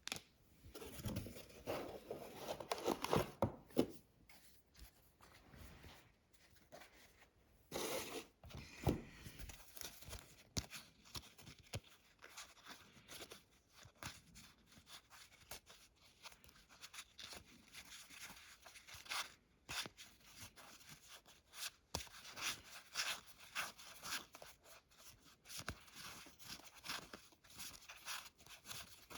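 Trading card booster packs being torn open and the cards handled: tearing and crinkling of the pack wrappers, with rustling and scattered small clicks. The handling is louder for a few seconds near the start and again about eight seconds in.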